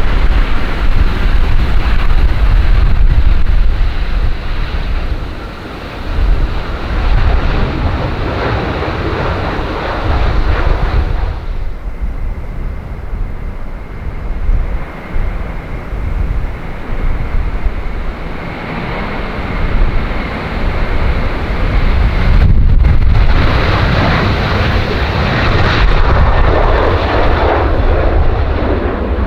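Jet airliner engines running loud as the aircraft passes, with a steady high whine through the middle, over heavy gusting wind on the microphone.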